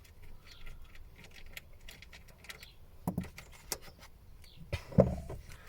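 Scattered light clicks and small metallic rattles of tools and parts being handled, with a few louder knocks about halfway through and near the end.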